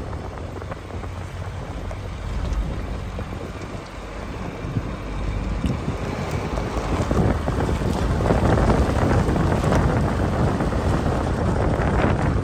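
Wind buffeting the microphone: an uneven rumbling roar that grows louder about halfway through.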